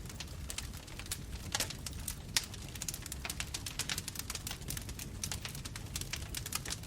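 Bonfire crackling: irregular sharp snaps and pops of burning wood, a few louder ones about one and a half and two and a half seconds in, over a steady low rumble of the flames.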